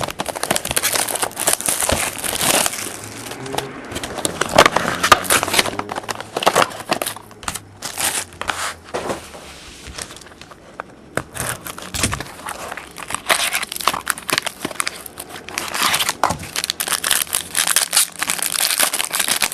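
Plastic wrapper of a trading-card pack crinkling and tearing as it is opened and handled, in quick irregular crackles.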